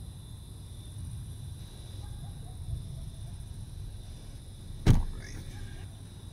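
A car's rear passenger door slammed shut about five seconds in: a single sharp bang over the low steady rumble of the waiting car.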